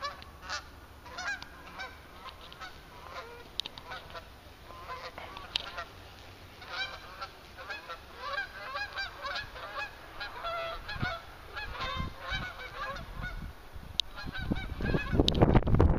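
A flock of geese flying overhead, honking repeatedly in many short, overlapping calls that grow denser through the middle. A low rumbling noise builds near the end.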